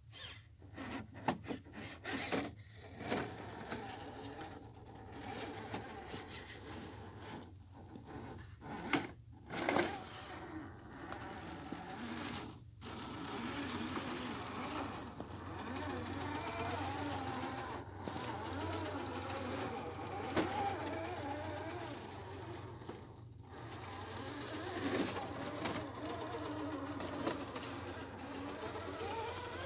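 Electric motor and gear whine of a 1/10-scale Axial SCX10 III Jeep Gladiator RC crawler, rising and falling in pitch with the throttle as it crawls over snowy rocks. A run of sharp clicks and scrapes comes in the first ten seconds or so.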